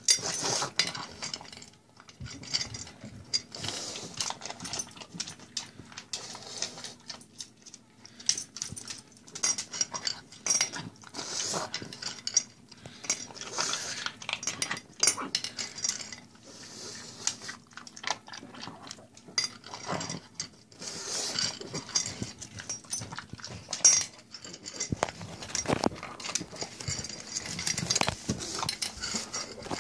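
A pug eating dry kibble very fast from its food bowl: a continuous, irregular run of crunching and clicking as it chews, with kibble and teeth clattering against the bowl.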